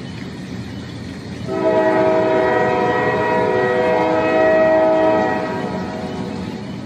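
A steady horn blast, starting about a second and a half in and held for about four seconds, over constant background noise.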